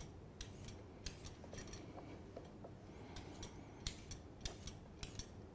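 Vegetable peeler scraping the tough lower skin off thick asparagus stalks: a dozen or so faint, short scrapes at an irregular pace.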